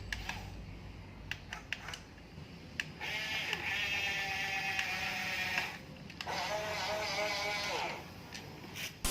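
Small electric motors of RC toy vehicles whirring in two spells of about two to three seconds each, with scattered clicks before the first.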